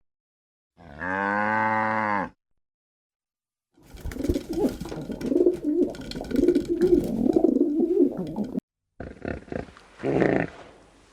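A cow moos once, one long steady call of about a second and a half. After a pause comes a stretch of rougher, fluttering animal vocalisations that cut off suddenly, then a few short calls near the end.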